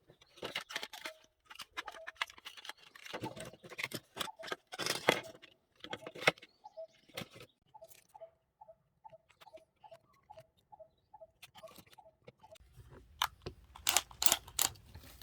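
A run of sharp clicks and knocks, then a regular ticking about twice a second, then more clicks over a low hum near the end.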